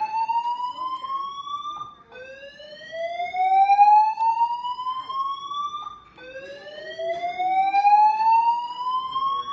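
Building fire alarm sounding a slow rising sweep tone: each sweep climbs steadily for about four seconds, breaks off, and starts again low, repeating without pause.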